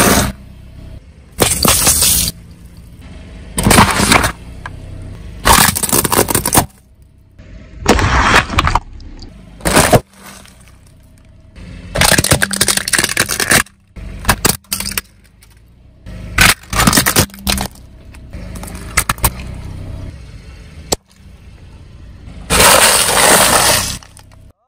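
A car's tyres crushing a run of objects one after another: about a dozen loud cracking, breaking crashes, each a second or so long, with quieter rolling noise from the car between them.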